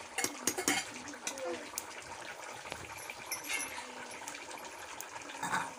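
A few metal clinks in the first second as a steel kadhai is gripped with tongs on a clay chulha, then a steady hiss from the wood fire burning beneath it.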